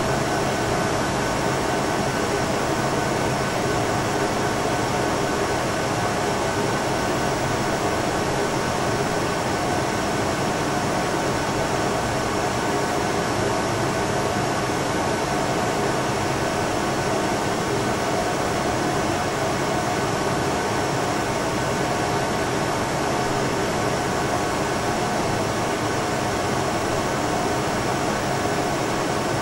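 Air-conditioning unit running steadily: a constant airy hiss of the fan with a faint steady hum underneath.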